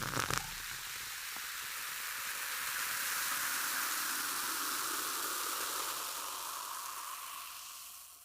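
Carbonated soda water fizzing: a steady hiss of bursting bubbles after a brief splash at the start, slowly fading out near the end.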